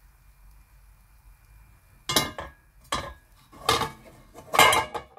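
Metal kitchenware clanking four times, starting about two seconds in and a little under a second apart, each clank with a brief metallic ring.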